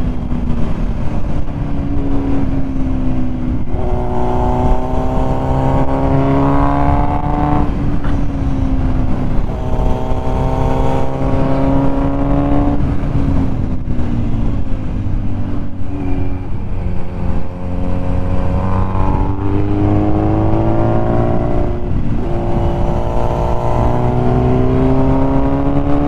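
Kawasaki Z900's inline-four engine under way on a ride, its note rising and falling again and again as the rider opens and closes the throttle through the bends. It runs over a constant rush of wind noise.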